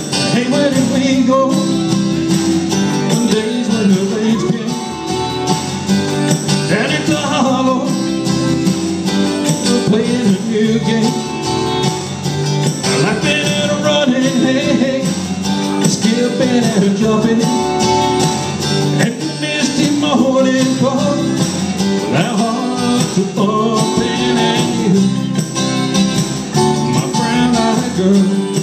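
A man singing a country song into a handheld microphone over amplified country music with guitar.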